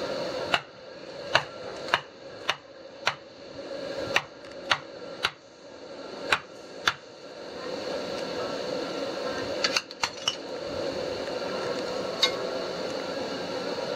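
Sharp knocks, about ten at roughly half-second intervals, as a machete is knocked to seat its bamboo handle onto the hot, smoking tang. Then a quick cluster of metal clinks about ten seconds in and one more near the end, over a steady background hum.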